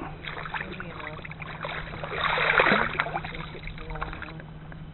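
Water splashing and dripping as a flathead is lifted out of the river on fish grips, with one loud splash about halfway through.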